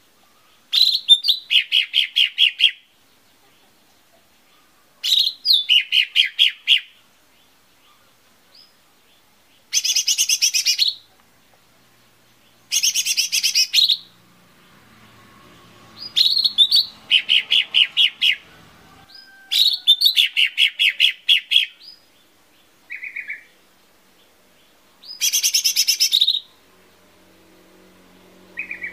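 Cucak ijo mini, a small green leafbird, singing in about eight separate bursts of one to two seconds, with short pauses between. Each burst is a rapid run of chirping notes that starts high and drops to a lower, repeated note.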